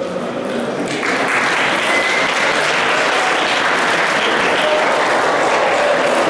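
Audience applauding, starting suddenly about a second in.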